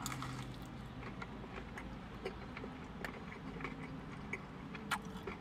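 Faint crunching of a person chewing a breaded fried chicken tender: irregular soft clicks about once every half second to second, over a low steady hum.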